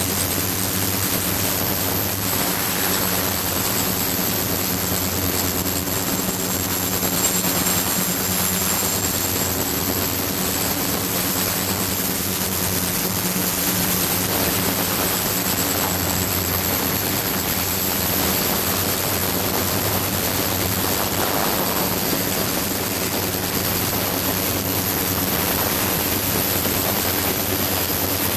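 Ultrasonic bath running with a glass bottle of powder slurry in its water: a steady hum of evenly spaced low tones under a hiss, with a thin high-pitched whine on top.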